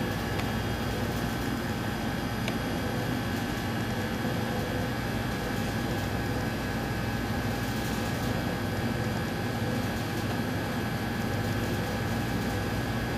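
Steady hum and hiss of running machinery, with several steady tones in it and a couple of faint clicks.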